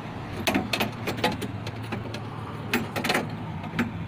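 About a dozen sharp clicks and knocks of hands and tools working on a car door while its quarter window glass is being fitted, over a steady low hum.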